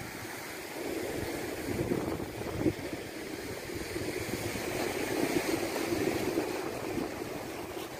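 Sea surf breaking and washing over the rocks of a boulder shore, a steady rushing that swells about a second in, with one short louder thump about a third of the way through.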